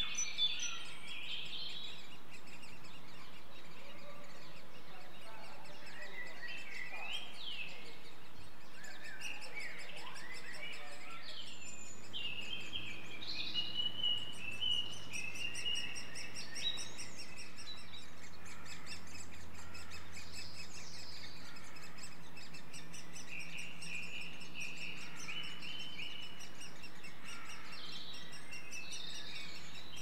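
Woodland birdsong: several small birds chirping and singing over a steady background hiss, busiest a little before the middle. A faint low hum comes in about twelve seconds in.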